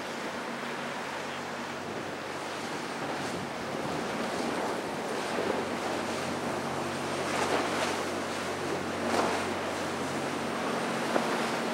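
Rushing surf and spray from a flybridge sportfishing boat's hull running fast through choppy inlet waves, with a faint steady engine drone underneath and wind on the microphone. Two louder splashing swells come past the halfway point.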